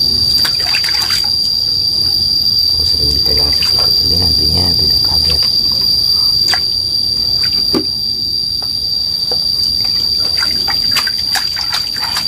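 Water sloshing and splashing in a plastic basin as a small snake is rubbed and dunked by hand, in a string of short irregular splashes. A steady high-pitched insect trill runs under it.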